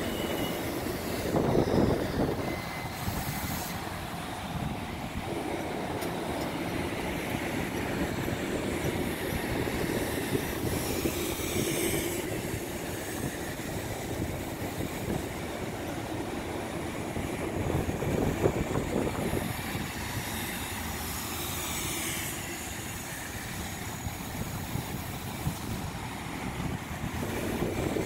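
Long Island Rail Road M9 electric multiple-unit train passing at close range, a steady rumble of steel wheels on rail with louder surges now and then as the bogies go by.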